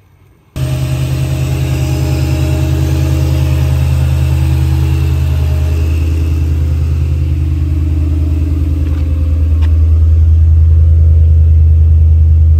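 Supercharged 4.6-litre DOHC V8 of a 2003 Mustang Cobra idling steadily with an even, low pulse. It cuts in abruptly about half a second in and gets a little louder toward the end.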